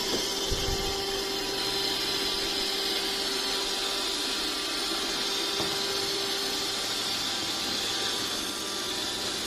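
Robot vacuum cleaner running: a steady whirring hum with a hiss over it.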